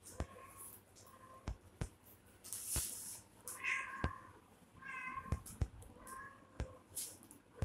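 Kittens mewing: about half a dozen short, high mews, with sharp clicks and taps scattered in between.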